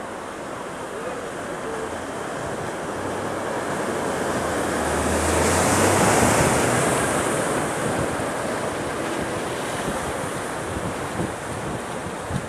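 A car pushing through deep floodwater close by: the rush and splash of its bow wave swells to a peak about halfway through, with its engine hum underneath as it passes, then fades.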